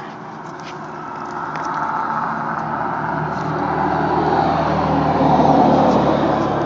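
A car driving past, its engine and tyre noise swelling gradually to its loudest about five seconds in.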